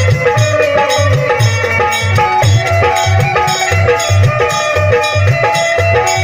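Live folk music: a dholak hand drum plays a steady, driving rhythm under an electronic keyboard melody.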